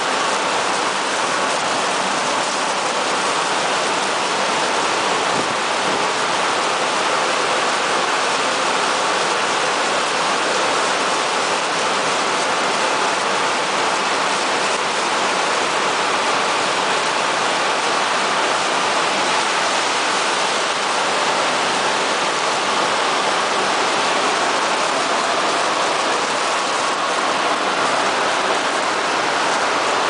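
Tepo-auto TP901 tunnel car wash running, with water jets spraying and rotating brushes turning over a car: a steady hiss of spray that holds at an even level.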